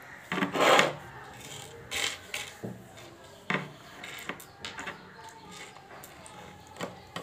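Hard tabasheer crystals clicking and scraping against each other and the wooden tabletop as fingers pick through the pile, with one louder scrape near the start and scattered short clicks after it.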